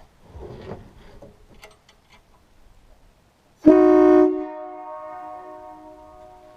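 Nathan three-chime air train horn (trumpets 1, 2 and 4A, on compressed air) sounding one short, loud blast of its chord, starting abruptly about halfway through. The chord drops after about half a second and then fades away over a couple of seconds. A few faint knocks come before it.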